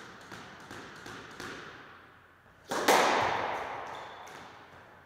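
A few light taps, then one loud smack about halfway through that rings on in the walled squash court for over a second.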